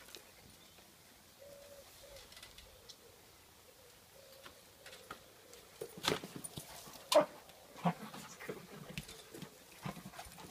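Chocolate Labrador giving a few short, sharp barks, starting about six seconds in, the loudest just after seven seconds.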